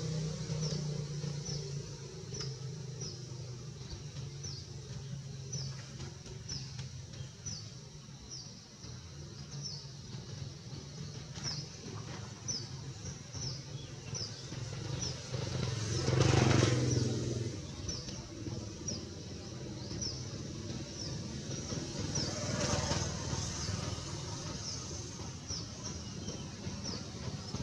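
A high, thin chirp repeats steadily, a little faster than once a second, over the low drone of motor traffic. A motor vehicle passes, loudest about sixteen seconds in, and a smaller rise comes near twenty-three seconds.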